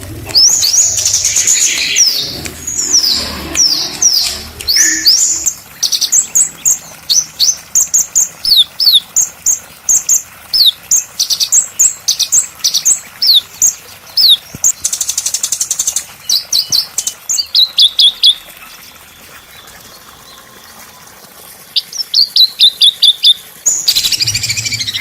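Small songbird singing a fast string of sharp, high, downward-slurred whistles, with a short buzzy rattle in the middle. The song stops for about three seconds, then resumes with a quick run of notes.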